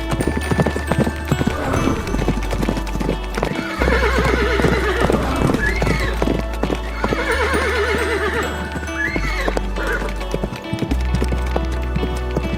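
Horses galloping, a dense patter of hoofbeats, with two long quavering neighs starting about four and seven and a half seconds in, over background music with a steady bass line.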